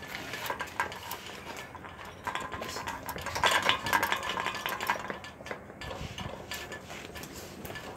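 Irregular clattering and clinking knocks, busiest and loudest in the middle.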